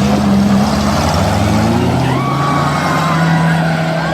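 Off-road tour jeep's engine running steadily under load, its pitch easing down a little about halfway through, with rushing noise over it.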